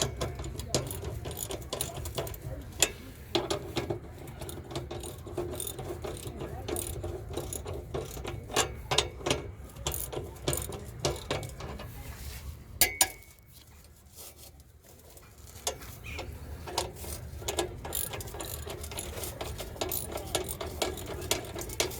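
Rapid, irregular mechanical clicking and clattering from hand-tool work, over a low steady hum. The clicking drops away briefly about thirteen seconds in, then resumes.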